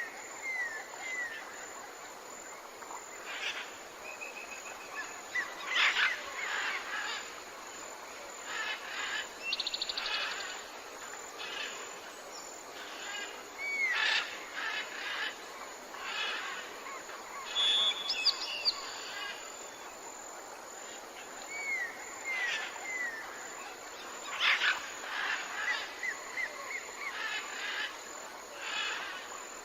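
Several wild birds calling and singing outdoors: short chirps and curved whistled notes come in scattered bursts, with a fast trill about ten seconds in and again near the end, over a faint steady background hiss.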